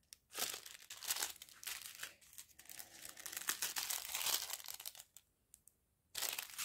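Clear plastic sachets of round diamond-painting drills being handled and flipped, crinkling in irregular bursts, with a short quiet pause about five seconds in.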